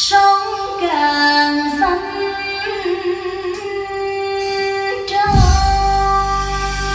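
Recorded song with a female voice singing a melody, played back over loudspeakers; the bass comes in strongly about five seconds in.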